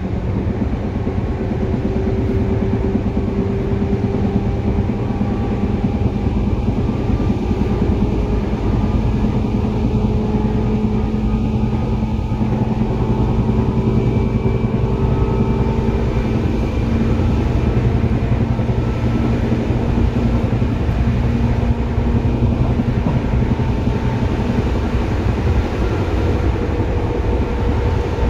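Seibu 2000 series electric commuter train running between stations, heard from inside the car: a steady rumble of wheels and traction motors, with faint whining tones that drift slowly in pitch.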